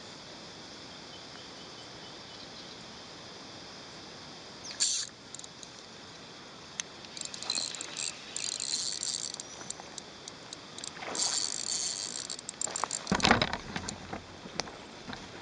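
A steady, high-pitched insect drone, with intermittent rustling or handling noises over it and one louder thump about thirteen seconds in.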